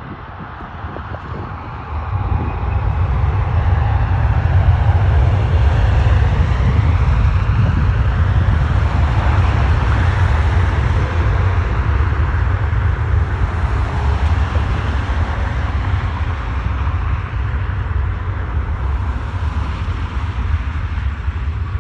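Jet airliner's engines at takeoff power as it rolls down the runway. The engine noise is loud and steady, swelling about two seconds in and then holding, with a deep rumble underneath.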